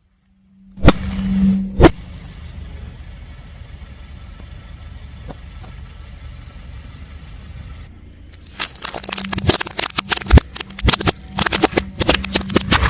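Car engine running while its tyre rolls over crunchy objects and crushes them: two sharp cracks about a second in, then after a steady stretch a dense run of cracking and crackling over the last four seconds.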